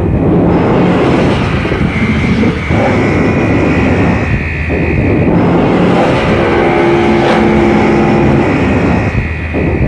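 Experimental noise recording from a cassette release: a loud, dense wash of noise with a few steady held tones over it. It thins out briefly about two and a half seconds in, again near the middle, and near the end.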